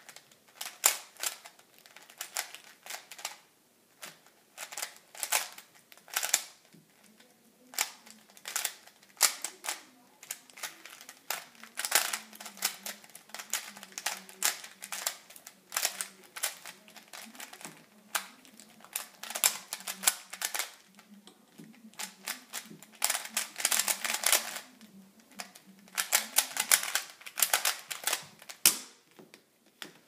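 A plastic Rubik's Cube's layers being turned rapidly by hand: bursts of quick clacking and clicking broken by short pauses. The clicking stops about a second before the end, as the cube is solved.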